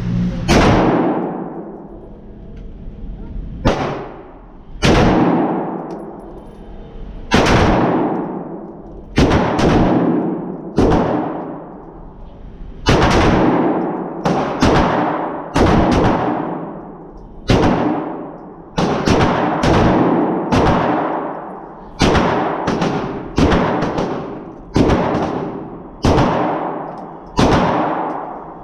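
AR-15 rifle shots fired one at a time, about two dozen at uneven intervals roughly a second or two apart. Each shot has a sharp crack followed by a long echo off the walls of an indoor range.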